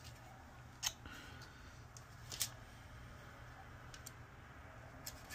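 Handling noise of a circuit board and multimeter probes: a few light clicks and knocks as the board is moved and turned over, the sharpest about a second in and again about two and a half seconds in, over a low steady hum.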